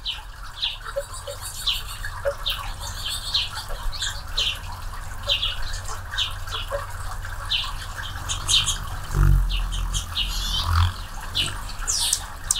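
Anna's hummingbirds at a feeder giving short, sharp chip notes, repeated every half second or so. A low hum of wings swells briefly about nine seconds in and again near eleven seconds.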